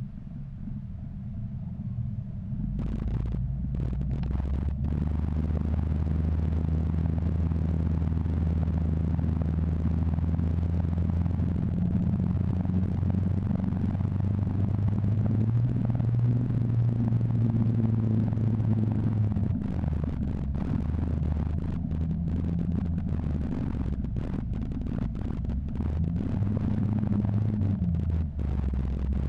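Engine of an open-top Jeep Wrangler pulling it along a dirt track, heard from the driver's seat: a low, steady engine drone that builds over the first few seconds, climbs in pitch about halfway through and drops back a few seconds later. Wind rushes over the microphone in the open cab.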